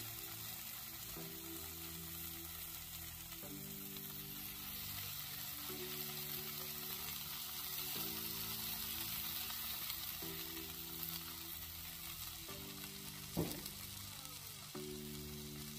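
Onions, peppers, egg and shredded parotta sizzling on a hot flat-top steel griddle, a steady frying hiss. Soft background music of held chords changes every second or two underneath, and there is one sharp knock about thirteen seconds in.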